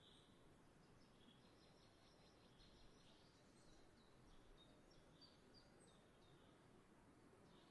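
Faint chirping and twittering of small songbirds, many short high notes scattered throughout, over a soft steady background hiss.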